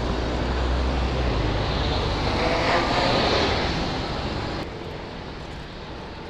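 Road traffic and wind noise heard from a moving e-bike. A passing engine swells and fades about two to three seconds in, and the noise drops suddenly quieter about four and a half seconds in.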